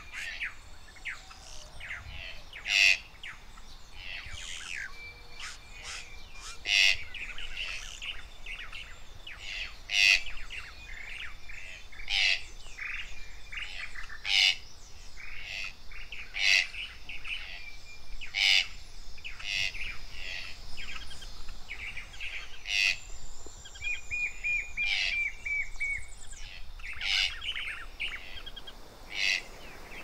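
Chorus of tropical forest birds: many overlapping chirps and short calls, with a short loud call repeating about every two seconds and a quick run of repeated notes late on.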